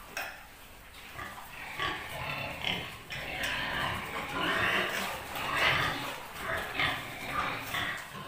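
Domestic pigs in their pens squealing in a string of harsh, irregular calls, louder and more frequent from about two seconds in.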